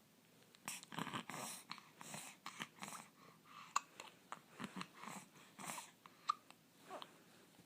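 A dog with hiccups: a few sharp hiccups stand out among softer irregular sounds from the dog.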